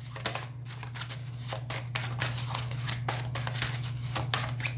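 A deck of oracle cards being shuffled by hand: a run of quick, soft card clicks and flicks, over a steady low hum.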